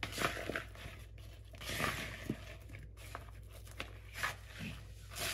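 Orange silicone spatula tossing chunks of raw potato and carrot with seasoning in a plastic mixing bowl: irregular scraping and crunching with a few light knocks.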